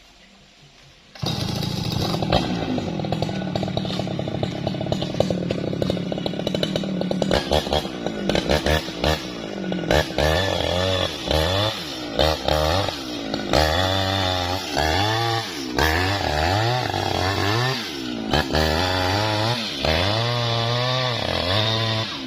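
Jonsered two-stroke chainsaw cutting lengthwise through tough bendo wood. It comes in suddenly about a second in and runs steadily at first. From about halfway, its engine speed rises and falls again and again as the chain loads up and bogs in the wood.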